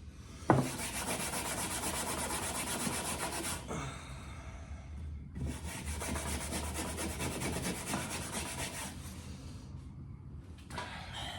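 Steel wool being scrubbed hard over a rusty metal camper hubcap: fast, even back-and-forth scraping strokes in two bouts with a short pause between. A single knock about half a second in is the loudest sound.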